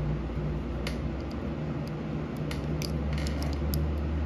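Small sharp clicks and ticks of a plastic electrical connector being handled as a crimped wire terminal is worked out of it, over a steady low hum.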